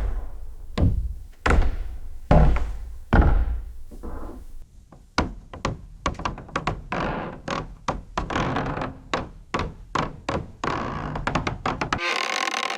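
Footsteps on creaky wooden stairs: heavy thuds with the treads creaking, about five steps in the first few seconds, then a quicker run of lighter knocks and creaks. The steps stop about twelve seconds in, and a different clicking follows.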